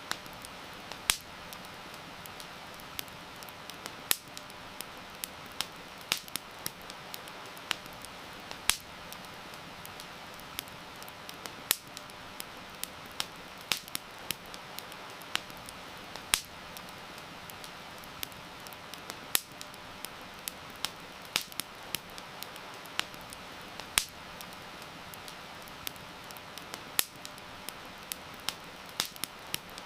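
Campfire crackling, with sharp, irregularly spaced pops and snaps over a steady hiss of rain.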